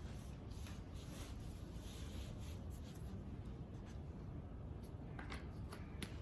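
Small parts being handled by hand: light scraping and rubbing strokes, then a few sharp clicks about five seconds in, over a steady low hum.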